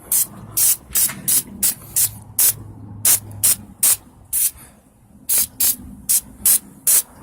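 Gunk heavy-duty gel engine degreaser being sprayed onto an engine in quick short squirts of hiss, about three a second, with a brief pause near the middle.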